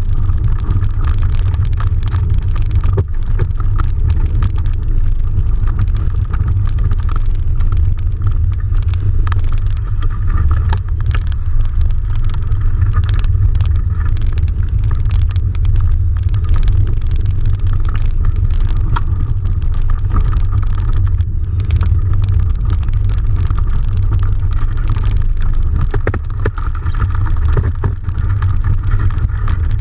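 Wind buffeting the microphone of a camera mounted high on a sailing dinghy's mast: a loud, steady low rumble with scattered faint clicks.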